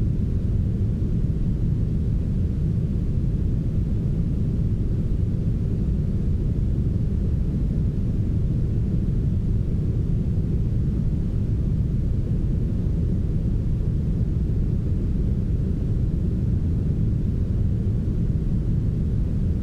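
Steady brown noise, heavily smoothed: a deep, even rumble with almost nothing in the upper range.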